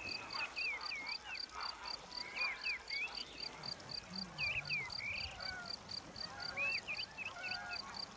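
Crickets chirping in a steady, evenly spaced pulse, with birds calling in short swooping chirps now and then.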